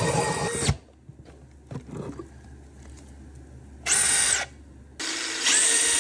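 Milwaukee cordless drill motor running at a steady pitch while drilling, stopping under a second in. A short burst of the drill about four seconds in. From about five seconds, tap water runs over the drill and the drill runs again.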